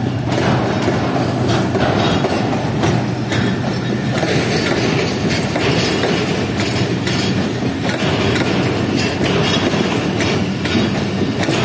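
Passenger train coaches rolling past close by: a steady rumble and clatter of wheels over the rails, with many sharp clicks from the rail joints.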